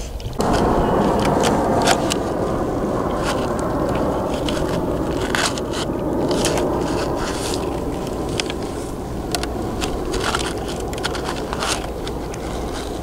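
Bruder toy excavator's plastic bucket scraping and crunching through sand and small shells, with many small clicks and crackles from the shells. It starts abruptly and eases off slightly toward the end.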